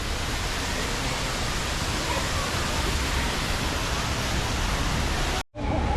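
Steady rushing noise, even across high and low pitches, broken by a brief dropout near the end.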